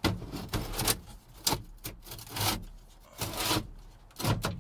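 Square-body truck dash parts being pushed and worked into place by hand, in five or six short rubbing, scraping strokes.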